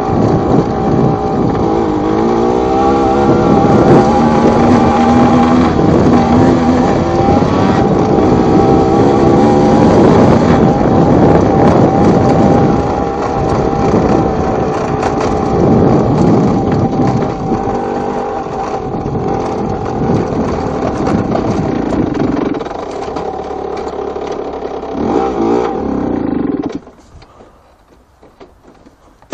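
Two-stroke engine of a Yamaha TZR / MBK X-Power, tuned to 90 cc, revving up and down repeatedly as the bike is ridden. Near the end the sound drops sharply to a faint level for about two seconds, then comes back loud.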